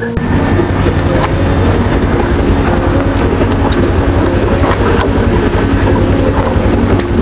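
Background music with a fast, busy beat and a melody of short notes stepping up and down, starting abruptly at the scene change.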